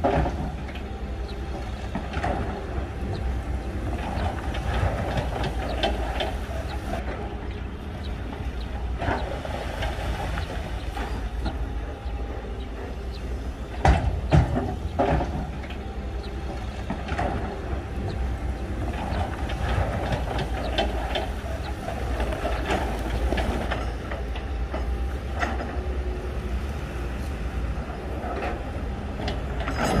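Heavy crawler bulldozer at work: a steady diesel rumble with clattering of its steel tracks, and loud metallic clanks near the start and again about 14 seconds in.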